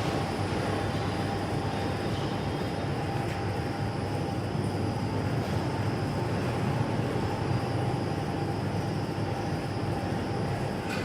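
Two-lane plastic bag cutting and sealing machine running steadily, a dense mechanical rumble with a constant whine.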